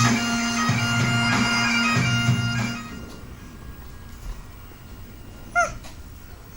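Bagpipe music with a steady drone for about the first three seconds, then fading away. Near the end comes a short, high chirping call that rises and falls in pitch.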